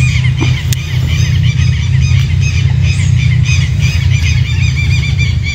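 Birds calling in a dense run of rapid, high, squeaky chirps, over a loud, steady low rumble.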